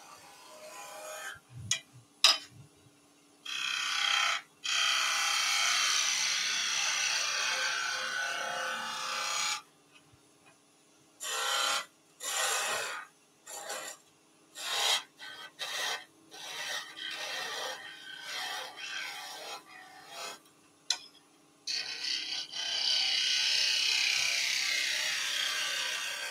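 Wood lathe turning a small wooden egg as a hand-held turning tool cuts the spinning blank: a hissing, shearing cut noise in long passes at the start and end, with a run of short, quick touches of the tool in the middle. A faint steady hum from the lathe runs underneath.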